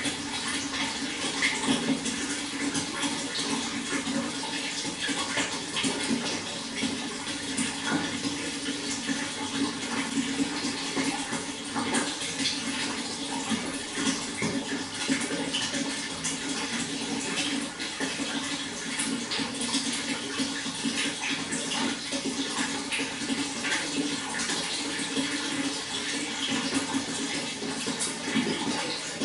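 Flowing water, running and splashing steadily, with many small irregular splashes and drips throughout.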